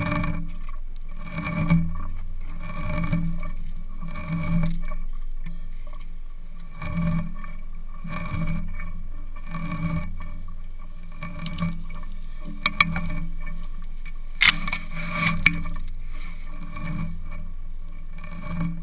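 Muffled rubbing and creaking of an action camera strapped to an elephant as the animal moves and browses, swelling in an even rhythm about every second and a half. A few sharp snaps come about two-thirds of the way through.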